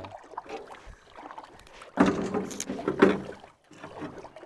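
Water splashing and sloshing, quiet at first, then two loud splashes about two and three seconds in.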